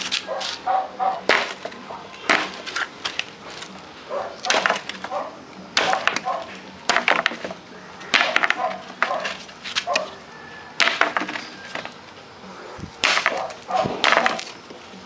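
Spring-steel bolo machete chopping into tree branches: a dozen or so sharp woody chops, roughly one a second, in an uneven rhythm.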